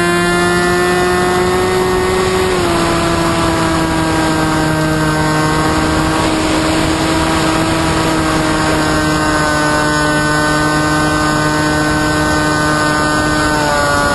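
Electric motor and propeller of an FPV flying wing, heard from the onboard camera as a steady whine over wind rush. The pitch steps down slightly a couple of seconds in and drops again near the end as the throttle is eased.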